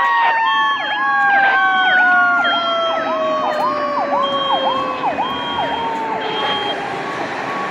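Fire apparatus sirens: a mechanical siren winds down in one long falling tone over about six seconds, while an electronic siren yelps in quick rise-and-fall cycles, about two a second. A high beeping tone comes and goes.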